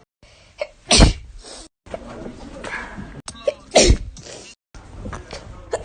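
Two sneezes from young women, each a short sharp burst: one about a second in, and another near four seconds in, with a falling 'ah' right before it.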